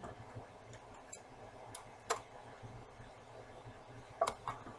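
A few light kitchen clicks and knocks, one about two seconds in and two close together near the end.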